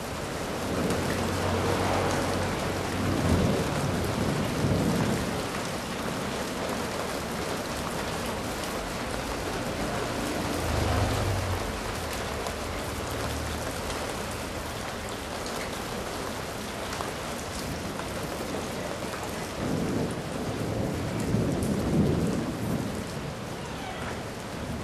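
Heavy rain falling steadily during a thunderstorm, with thunder rumbling low in the first few seconds, again about halfway through, and once more near the end.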